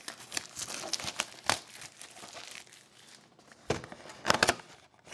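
Plastic wrapping on a box of hockey cards crinkling and tearing as it is opened, with scattered rustles and two louder bursts of crinkling near the end.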